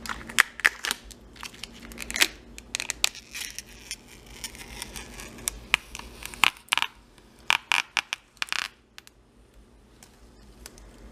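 Protective plastic film being peeled slowly off a new graphics card: irregular crackles and sharp clicks, thinning out about nine seconds in.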